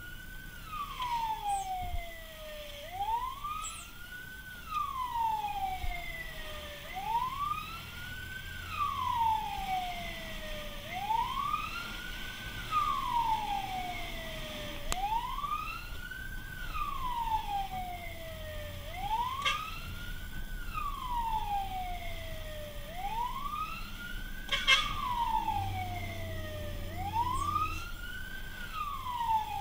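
Fire truck siren wailing, heard from inside the cab. Each cycle rises quickly and falls slowly, about every four seconds, over the truck's engine running. A sharp knock sounds about three quarters of the way through.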